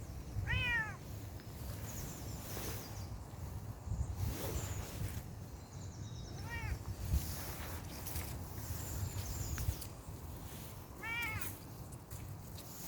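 Bengal kitten meowing three times, short arching mews spaced several seconds apart, over low wind rumble on the microphone.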